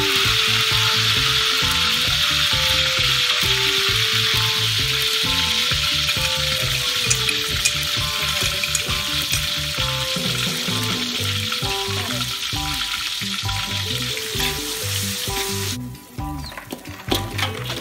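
Hot oil sizzling in a metal wok as vegetables and a ground spice paste fry and are stirred with a metal ladle, under background music with a steady beat. The sizzle fades over the second half and cuts off sharply near the end.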